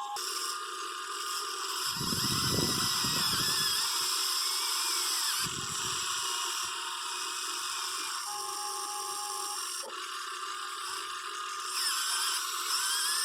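Electric motors of a Huina 580 RC model excavator whining as it works, their pitch gliding up and down as the functions change speed. A lower, rougher rumble comes in about two seconds in and again near six seconds.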